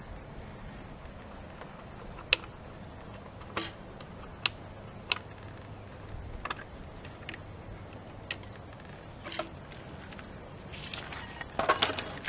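Handling noise: scattered single sharp clicks and light knocks, about one a second, over a quiet background, then a short burst of rustling and clicking near the end.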